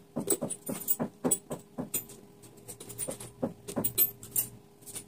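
Iron nails clicking and clinking against one another and the board as they are laid one by one across a base nail, heads alternating, to lock them together: irregular small metallic taps, several a second.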